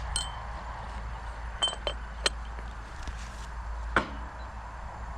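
A handful of sharp taps and clinks, about five spread over the few seconds, some with a brief ringing note: a seasoning jar being knocked and handled while shaking herbs onto fish.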